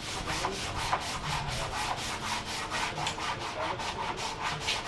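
Wood being sanded, quick, even back-and-forth scraping strokes at about five or six a second.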